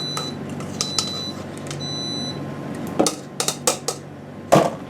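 A few short, high-pitched beeps, then a quick run of clinks and knocks of pots and utensils being handled, over a steady low hum.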